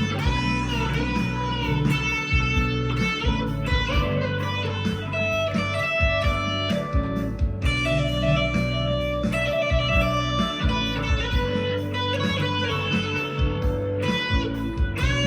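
PRS SE 245 electric guitar through overdrive playing a lead solo in B minor, with string bends, over a backing track of bass and drums.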